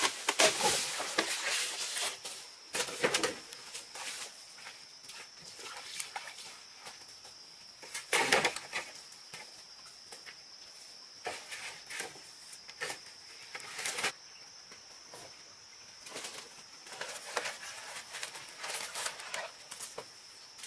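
Long bamboo poles knocking and clattering against each other as they are handled and stacked, with rustling of bamboo leaves. The loudest knocks come about three, eight and fourteen seconds in. From about two seconds in, a steady high-pitched tone runs underneath.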